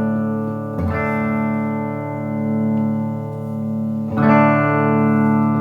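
Electric guitar (Peerless ES-345) through a Dyno compressor pedal and Crate amp, struck about a second in and again about four seconds in, each time ringing out long at an even level: the pedal's sustain turned up.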